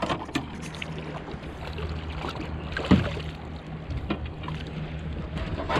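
A small fishing boat's motor idling with a steady low hum, while a hooked yellowtail (jurel) is grabbed by hand and lifted out of the water. There is splashing and knocking at the hull, and a louder thump about three seconds in.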